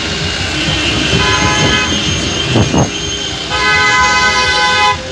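Car horns honking in two long held blasts, the first from about a second in and the second, steadier one from about three and a half seconds in, stopping just before the end. A brief swooping sound comes between them.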